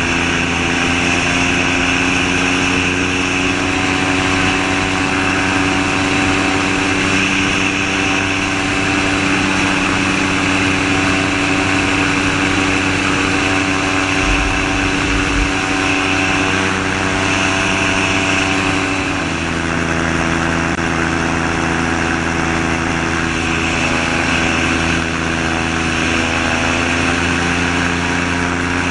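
Gyrocopter's Subaru EA-81 flat-four engine turning a Warp Drive propeller through an NSI reduction gearbox, running steadily at cruise power in flight, with wind rushing past the open seat. About two-thirds of the way through the engine note drops a little, then creeps back up near the end.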